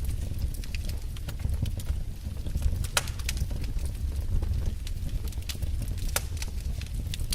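Wood fire crackling in a fireplace: irregular sharp pops and snaps over a low steady rumble of the flames, with the loudest pops about three and six seconds in.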